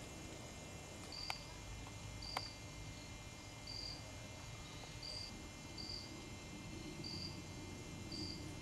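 Quiet woodland ambience with an insect chirping in short, high pulses about once a second, and two sharp clicks about one and two and a half seconds in.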